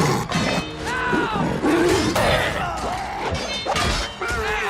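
Film battle sound mix: repeated weapon blows, crashes and thuds, with shouted cries and snarls, under an orchestral score.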